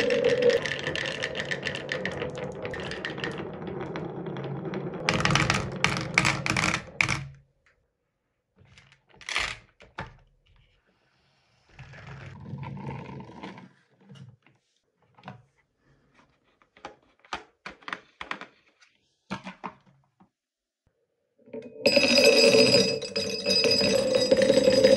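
Many glass marbles rolling and clattering down a wooden marble run, knocking against wooden zigzag blocks. For a long stretch in the middle only scattered single clicks and knocks are heard. Near the end a dense stream of marbles clatters again with a ringing tone.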